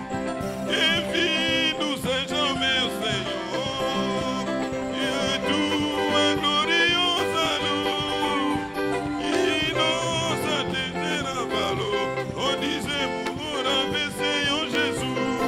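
A live worship band playing: hand-struck conga drums, a drum kit and an electric bass, with a singing voice wavering over the music.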